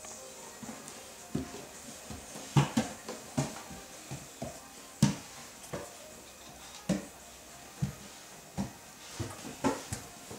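Irregular soft thumps and pats of a toddler's bare hands and feet on wooden stair treads as she crawls up the stairs, roughly one or two knocks a second.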